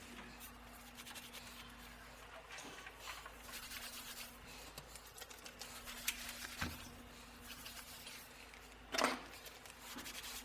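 Faint rubbing and scraping of things being handled, with scattered small clicks over a steady low hum. There is a sharp knock about six and a half seconds in and a louder short knock near nine seconds.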